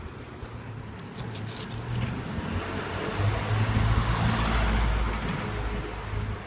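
A truck drives past on the street: its engine hum and tyre noise swell to a peak about four seconds in, then fade. A few light clicks come about a second in.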